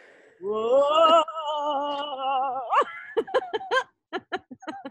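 A voice holding one long, wavering sung note for about two seconds that ends in an upward swoop, followed by short bursts of laughter.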